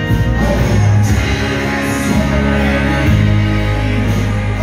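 Live rock band playing a slow song through the hall's PA: acoustic guitar and keyboards over deep held bass notes that change about once a second, with a male voice singing.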